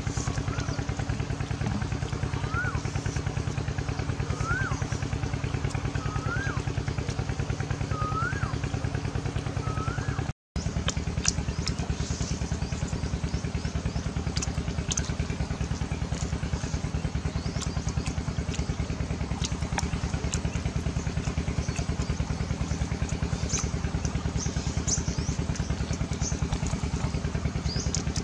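A small motor runs steadily with a fast, even pulse, broken briefly about ten seconds in. Over the first part a bird repeats a short rising-and-falling whistle about every two seconds, five times.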